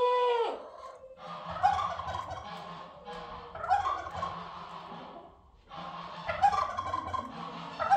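Domestic turkey gobbling, three rattling gobbles about two seconds apart. Another bird gives a short, clear call right at the start.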